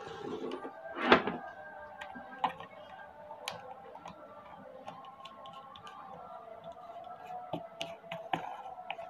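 Plastic clicks, ticks and knocks of a standing fan's motor head being handled and fitted onto its stand pole, the loudest a knock about a second in, over faint background music.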